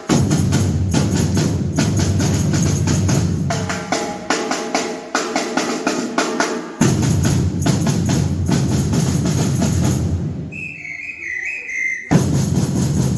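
Batucada percussion band playing a samba rhythm on bass drums, snare drums and other hand percussion. The drums drop out about ten seconds in, leaving a quieter high wavering tone, and come back in loudly about two seconds later.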